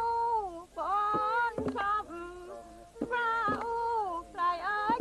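A woman singing a jriang nor kaew folk song unaccompanied, in long held phrases that slide widely in pitch, with short sharp taps between the phrases.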